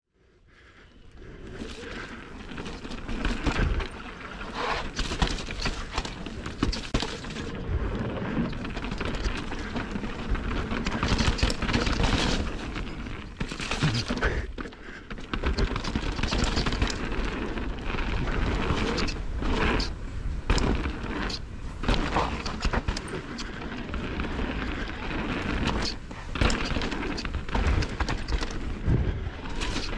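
Mountain bike riding fast down a dirt and rock trail, heard from a camera on the rider: tyres rolling and crunching over dirt and stones, the bike knocking and rattling over bumps, with a heavy low rumble of wind on the microphone. It fades in over the first couple of seconds.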